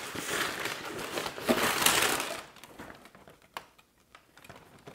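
Tissue paper crinkling and rustling as a pair of sneakers is lifted out of their shoebox, stopping about halfway through and leaving only a few faint clicks.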